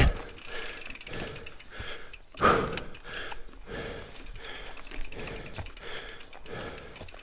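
Mountain bike rolling over a dirt forest trail, its rear freehub ratcheting with fast fine clicks while it coasts, with the rider's hard breathing repeating steadily. One louder bump about two and a half seconds in.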